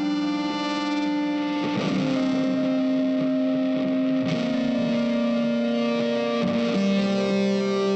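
Background instrumental music: sustained notes, changing pitch every two seconds or so.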